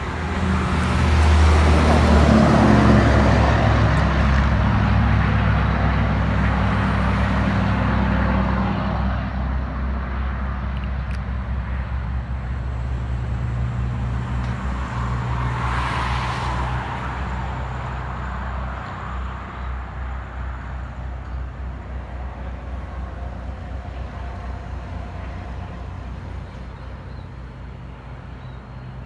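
Large vehicle engines, a tour bus and a truck, running past on a hill road. They are loudest in the first few seconds and then slowly fade, with a brief rush of noise about 16 seconds in.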